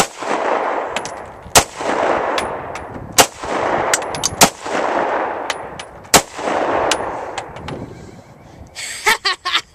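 CZ SP-01 Phantom 9mm pistol fired five times, spaced one to two seconds apart. Each shot is followed by a long rolling echo, and short high pings come between the shots.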